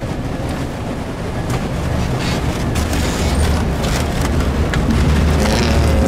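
Busy store background noise: a steady low rumble under scattered knocks and clatter, with a voice near the end.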